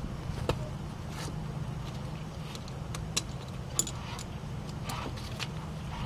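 Light metallic clicks and clinks of an M8 × 1.25 steel bolt being handled and threaded by hand into a threaded puller hole on a rusty rear brake drum: a handful of scattered ticks over a steady low hum.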